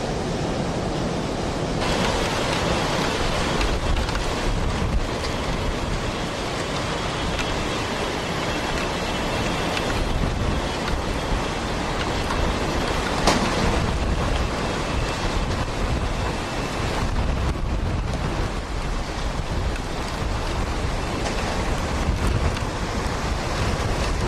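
Hurricane wind blowing hard and buffeting the microphone with a deep rumble, picking up about two seconds in. A single sharp crack about thirteen seconds in.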